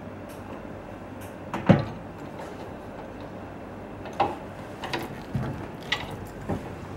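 Equipment being handled: one loud knock about two seconds in, then a run of lighter clicks and taps, over a steady low hum.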